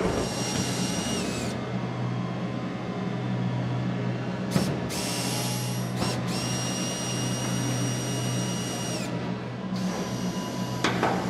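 Power tool running in four bursts of a few seconds each, a steady high whine that dips in pitch as each burst stops.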